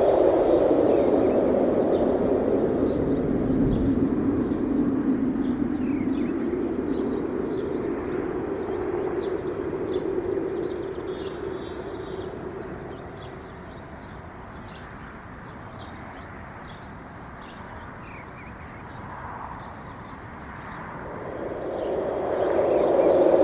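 Wind gusting, loud at first, dying down about halfway through and picking up again near the end, with small birds chirping faintly throughout.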